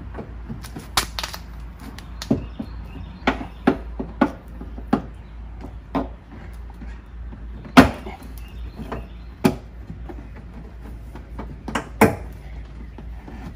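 Plastic tabs and clips of a 2017 BMW X4's rear bumper cover snapping and clicking as the cover is pulled back and released. The snaps come irregularly, a dozen or so, the loudest about two-thirds of the way through and again near the end.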